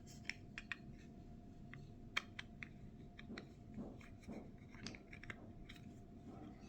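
Faint scattered clicks and light scraping from a small plastic garage door remote being handled as its battery cover is fitted back on, the sharpest click about two seconds in, over a faint steady hum.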